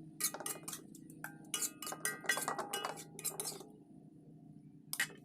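Kitchen utensils and dishes clinking: a quick run of ringing clinks for about three and a half seconds, then one more near the end, over a steady low hum.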